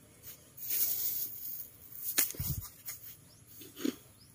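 Hands pressing and rustling dry, coarse potting mix around a plant's stem in a plastic pot. A sharp click comes just after two seconds in, followed by a low thump, and there is a small knock near the end.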